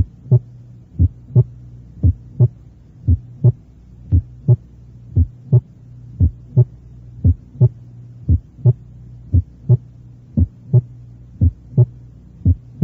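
Recorded human heart sounds: a slow, regular lub-dub about once a second, the second sound following the first by about a third of a second, over a steady low hum. They illustrate a PR interval of 0.18 s, at which the first heart sound is reduced in intensity and the second can be louder than the first.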